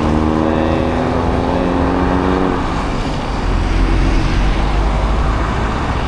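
Road traffic and wind rushing past a moving rider. A steady pitched hum runs for the first two and a half seconds, and a deep rumble swells in the second half, like a vehicle passing close.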